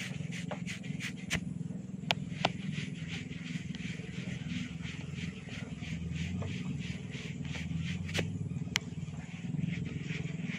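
Sharp snapping cracks from hair being twisted and tugged in a hair-cracking massage: several in the first few seconds and two more near the end. They sit over a steady low rumble and a light rustle.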